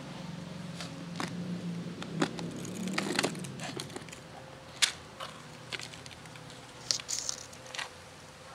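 A plastic clip-lock food container being unlatched and its lid lifted off: a handful of sharp plastic clicks and knocks spread over several seconds, with a low hum under the first few seconds.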